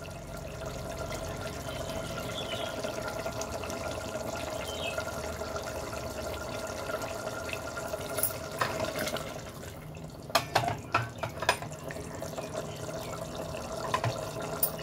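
Thick mutton curry being stirred in an open aluminium pressure cooker: wet, liquid stirring sounds, with a few sharp clicks of the ladle against the pot, most of them about ten to eleven seconds in. A steady hum runs underneath.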